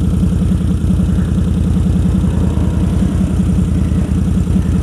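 Can-Am Renegade ATV engine idling steadily, with a fast, even pulsing.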